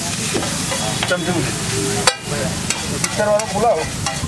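Food sizzling on a hot iron griddle (tawa) at an egg street-food stall: a steady frying hiss, with a sharp click about two seconds in.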